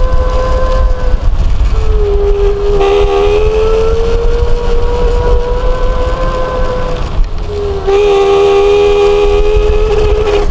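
Gotrax GXL V2 electric scooter in motion: a strong steady whine over a low rumble, dipping slightly in pitch about two seconds in and again near eight seconds. This is the loose-sounding noise from the front wheel that comes up as speed increases.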